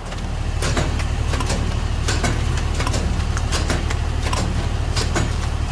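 Engine of a mobile water treatment vehicle running steadily at idle, a low even hum, with scattered short clicks and knocks over it.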